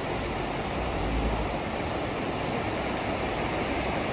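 Suzuki Jimny driving off-road: a steady rushing noise with low rumbles, with no clear engine note standing out.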